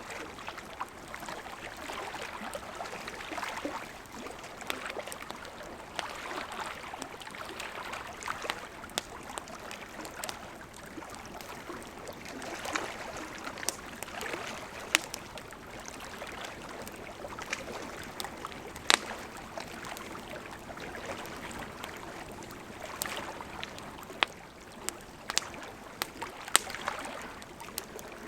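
Wood campfire crackling, with frequent sharp pops scattered throughout, over small lake waves lapping at the shore that swell and ebb every few seconds.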